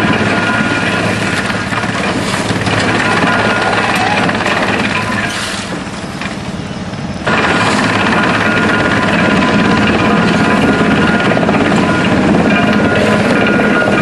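Drum wood chipper running with wood being fed to it along a belt conveyor: a loud, steady mechanical drone with an even hum. It sags for a couple of seconds and comes back abruptly about seven seconds in.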